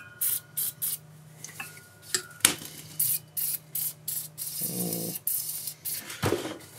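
Short repeated hissing bursts of an aerosol lubricant sprayed into the cylinder of a seized air compressor pump, to free the stuck piston. A brief rattling scrape about two-thirds of the way through.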